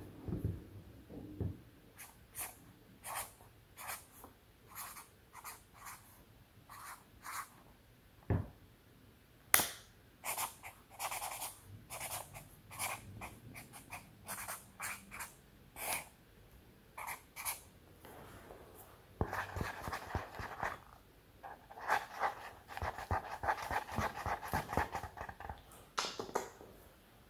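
Green Sharpie marker writing on a pink Post-it note: short squeaky strokes one after another, with one sharper click about ten seconds in and longer, denser strokes near the end.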